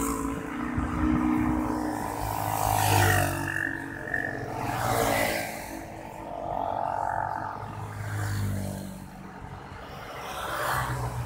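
Car engine and road noise heard from inside a moving car in slow traffic, swelling and easing every couple of seconds as it speeds up and slows.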